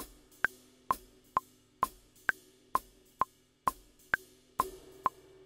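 A sampled jazz drum kit from the ProjectSAM Swing! library, played along to a steady metronome. The metronome clicks a little over twice a second, with a higher click on the first of every four beats, while drum and cymbal hits ring out between the clicks.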